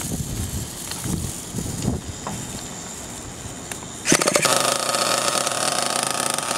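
Freshly cleaned .28 nitro RC buggy engine, bench-run out of its chassis. After a few light clicks of handling, it fires up suddenly about four seconds in and keeps running steadily.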